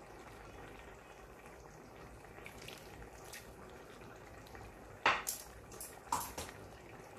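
Metal tongs stirring a pot of simmering molokhia stew, clinking sharply against the metal pot several times in quick succession about five seconds in, over a low steady bubbling.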